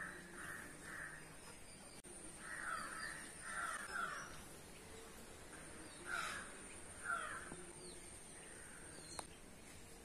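Crows cawing in the background: a pair of harsh caws about two and a half seconds in and another pair about six seconds in.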